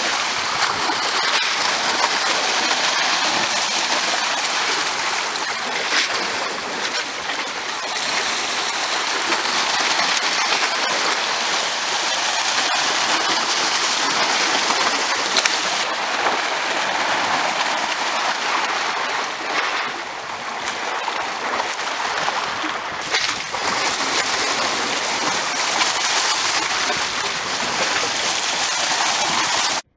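Sea water washing and splashing among the concrete blocks and boulders of a breakwater, a dense, steady hiss of surf in the rocks.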